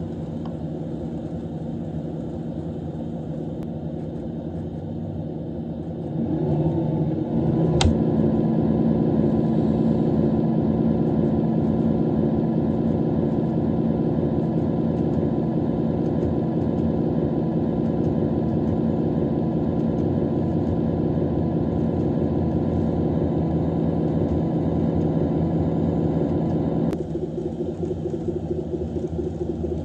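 Reproduced KiHa 85 series diesel railcar Cummins engine sound from an N-gauge model-train sound card. It runs lightly, steps up to a louder, heavier run about six seconds in as the engine notches up, gives one sharp click near eight seconds, and falls back to a lighter run a few seconds before the end.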